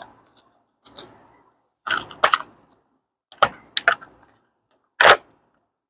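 Product packaging being opened and handled: a handful of sharp clicks and short rustles, spaced about a second apart.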